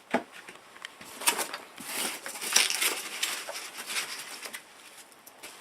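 Loose packing fill rustling and crunching as it is handled, with irregular crackles and sharp clicks.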